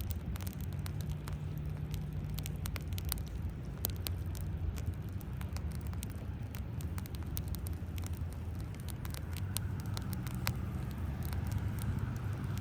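Wood fire crackling, with many irregular sharp pops and snaps. Under it runs a steady low rumble of road traffic, which swells near the end.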